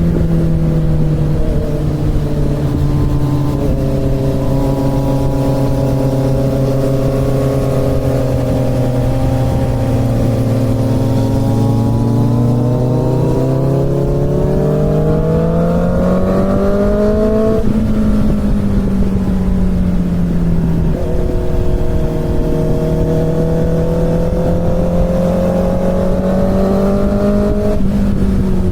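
Inline-four motorcycle engine under way, holding steady revs for a long stretch. It then climbs smoothly for about five seconds, drops back, and settles again, with shorter shifts in pitch near the start and near the end. Steady wind and road rush runs underneath.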